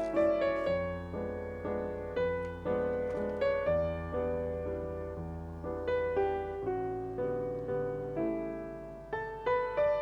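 Background piano music: a melody of struck notes that each fade away, over low bass notes.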